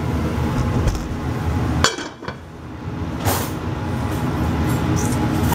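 Pans and metal utensils handled on a stovetop over a steady low rumble: a sharp knock just under two seconds in, then a clink of metal on cookware about a second later.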